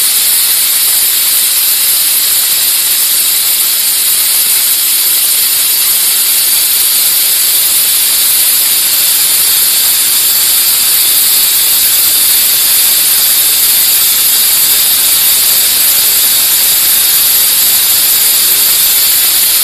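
Steam gun of an electric steam wash machine jetting steam: a loud, steady hiss.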